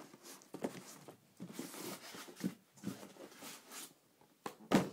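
Handling noise: irregular rustling and light knocks as the boxed airsoft AK-47 and its packaging are handled, with one sharp, loud knock near the end.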